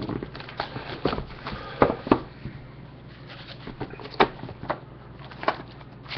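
A cardboard hobby box of trading cards being handled and opened on a desk: about ten irregular sharp clicks and knocks as it is tapped and its lid opened and the wrapped pack pulled out, the loudest about two seconds in and just after four seconds, over a steady low hum.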